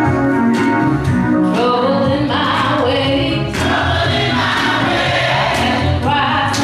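Gospel choir singing with electronic keyboard accompaniment; the choir's voices come in about a second and a half in, over the keyboard's introduction.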